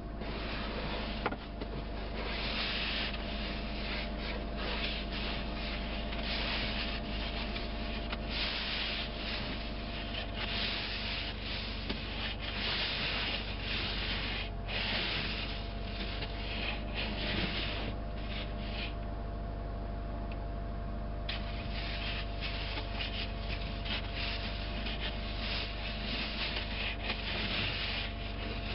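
Windshield wipers rubbing back and forth across wet, snowy glass inside a car, over a steady low hum. The scraping surges every second or two and drops away for about two seconds around two-thirds of the way through.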